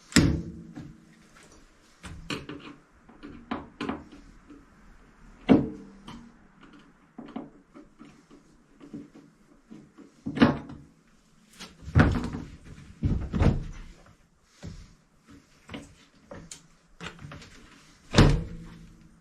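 Irregular wooden knocks and thumps, with handling and scraping between them, from galley cabinetry and trim being pulled apart by hand inside a wooden boat's cabin. About a dozen hits; the loudest come at the very start, about ten seconds in, and near the end.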